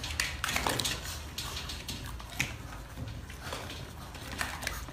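Metal wire pet pen rattling and clicking irregularly as husky puppies climb and scrabble against its bars.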